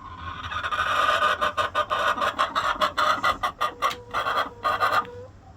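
A hen making a rapid, rasping run of noise that turns choppy after about a second and stops about five seconds in.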